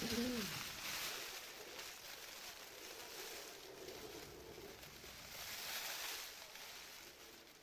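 Rustling hiss of a thin foil emergency tent being handled, swelling about a second in and again near the end. A short gliding whine sounds at the very start.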